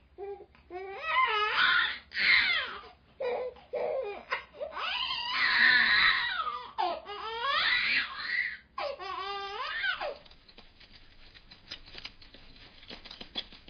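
A baby babbling and crying in a run of high, wavering cries and squeals for about ten seconds, then stopping, leaving only faint clicks and rustle.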